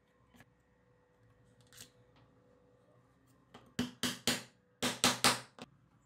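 Quick rasping strokes of hand work on a small leather card holder, in two runs of three, about four strokes a second.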